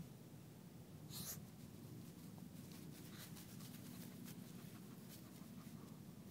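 A small dog sniffing at wet sand in many quick, faint snuffles, over a steady low rumble.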